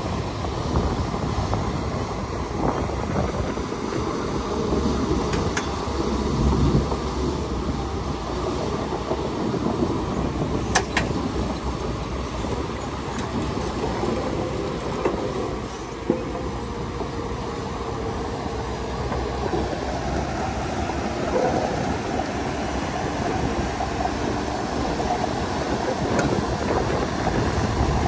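Shantui DH17C2 crawler bulldozer at work: a steady heavy diesel engine note with the clatter of its steel tracks, and a few sharp metal clanks.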